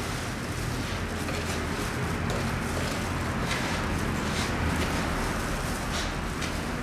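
Plastic-gloved hands kneading a dough of crushed Marie biscuits and milk in a plastic tub, making soft irregular rustling and squishing, over a steady background hum and hiss.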